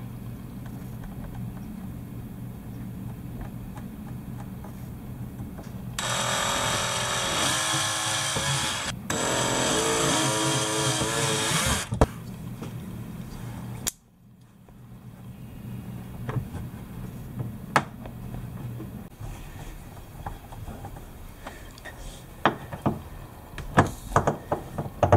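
Power drill running in two bursts of about three seconds each, drilling two holes through a kayak's plastic side wall, after a low steady hum. Scattered clicks and knocks of handling follow.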